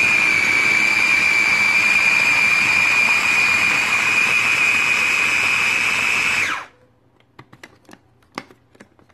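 Small electric food processor running steadily with a high motor whine, puréeing oats, milk and banana into batter. It cuts off about six and a half seconds in, and a few faint clicks follow.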